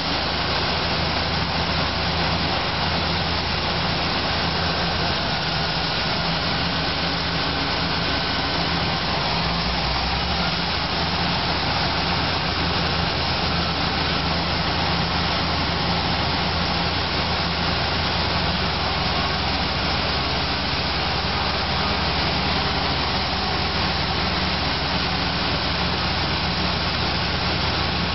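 Diesel engines of crawler bulldozers running steadily: a constant low engine drone under an even hiss.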